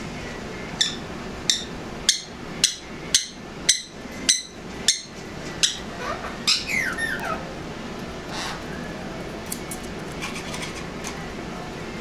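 Angry sun conure screeching: nine loud, sharp screams about every half second, then a few falling, wavering calls. Fainter calls follow near the end.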